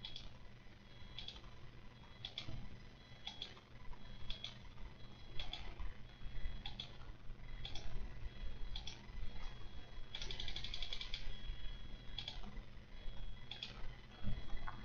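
Faint mechanical clicking, irregular ticks every half second to a second, with a quick run of rapid clicks about ten seconds in.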